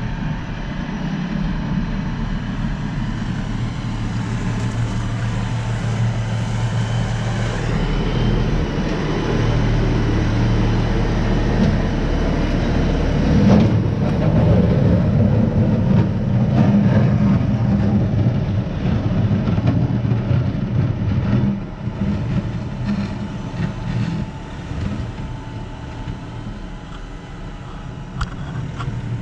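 LS compact tractor's diesel engine running under load as it pushes snow with its front loader bucket. It grows louder as the tractor comes close about halfway through, with a sharp knock near that point, then fades as it drives away.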